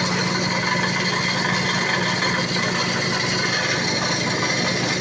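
Construction machinery running steadily, a continuous mechanical rattle over a constant engine hum.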